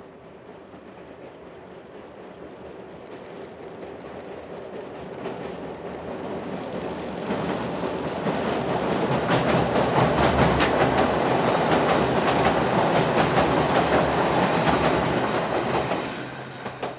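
Former Nankai 21000 series electric multiple units, two units coupled, crossing a steel girder railway bridge. The running noise swells as they approach, with wheels clattering over rail joints through the loudest part, then drops away sharply near the end as the train passes.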